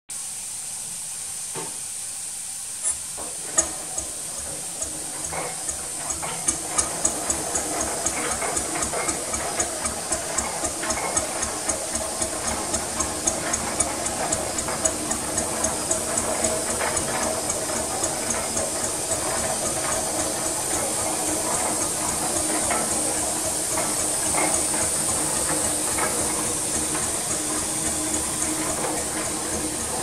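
A quarter-scale replica of a Fowler 16 hp single-cylinder ploughing engine running on compressed air instead of steam. A steady hiss of air, with exhaust beats that start slowly a few seconds in and quicken until they blur into a continuous rush as the engine speeds up.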